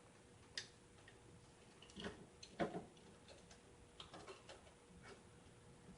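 Faint, scattered clicks and light knocks of a CPU cooler and PC case being handled and fitted, the loudest cluster a little before the middle.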